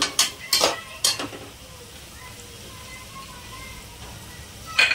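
Ginger-garlic paste and onions sizzling in hot oil in a pressure cooker. A metal spoon stirs and knocks against the pot about four times in the first second and a half and once more near the end, with a steady sizzle in between.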